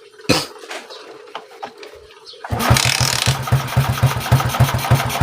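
A few handling clicks and a knock, then about two and a half seconds in the Kawasaki Rouser LS135's single-cylinder four-stroke engine catches and runs with a fast, even pulse. It has a rattle that the owner blames on a noisy timing chain and tensioner.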